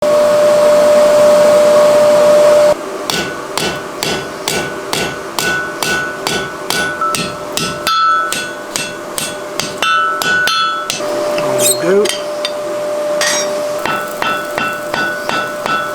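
A steady hum for about the first three seconds, then hammer blows on steel at an anvil, about three a second, each strike leaving a ringing note.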